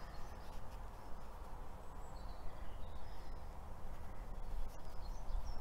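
Garden ambience: a few faint, short bird chirps over a low steady rumble.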